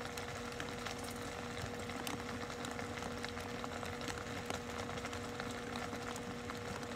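Steady low background noise with a constant two-note hum and scattered faint clicks.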